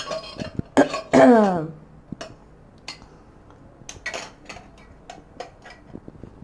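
A person's short throaty vocal sound about a second in: a rough burst, then a voiced sound sliding down in pitch. After it come scattered light clicks and clinks of kitchen utensils and dishes.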